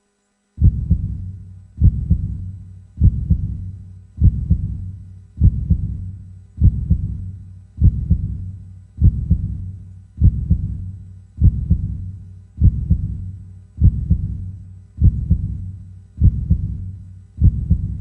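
Heartbeat sound effect: a slow, steady lub-dub beat, each beat a quick deep double thump with a fading tail, repeating about every 1.2 seconds (around 50 beats a minute). It starts about half a second in, after silence.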